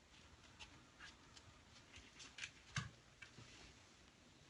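Near silence: room tone with a few faint, scattered ticks and scratches.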